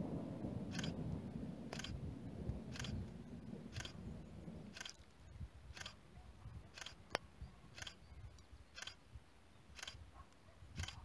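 DSLR camera shutter firing for a time-lapse: a short mechanical click about once a second, evenly spaced. A low rumble under the first half fades out about five seconds in.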